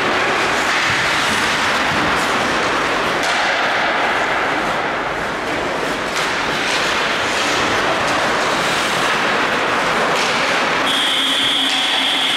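Ice hockey play in an ice rink: a steady hiss of skates on the ice, with a few sharp knocks of sticks and puck. A steady high-pitched tone starts near the end.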